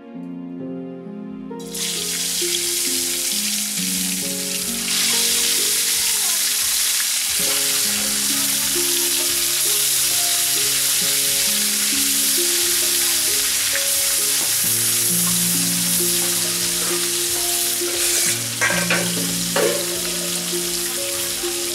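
Pieces of turmeric-coated carp (pona fish) sizzling steadily in hot oil in an aluminium kadai. The sizzle starts abruptly about two seconds in and grows louder around five seconds, with a few sharp clinks near the end. Background music plays over it.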